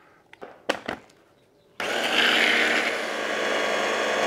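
A spoon knocks a couple of times against a plastic chopper cup as cooked rice is scooped in. About two seconds in, a hand blender with its chopper attachment starts and runs steadily, blending the rice into a purée.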